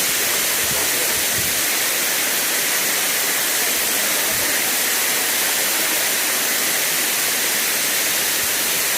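Kanto Lampo waterfall's water pouring down, a loud, steady rush of falling water with no breaks.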